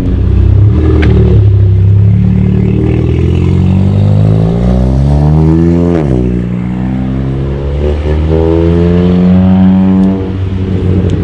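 Modified car engine accelerating hard as the car pulls away: the pitch climbs, drops sharply at a gear change about six seconds in, then climbs again until the throttle is lifted near the end.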